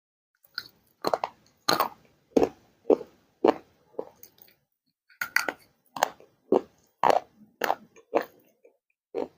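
Crunchy baked clay being chewed close to the microphone. It goes in sharp, crisp crunches about two a second, with a short pause about halfway through.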